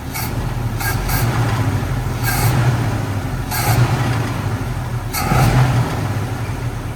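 1965 Ford Mustang's engine running, swelling louder briefly about five times as if being revved, over a steady low hum. It runs more smoothly since a disconnected vacuum line was hooked back up.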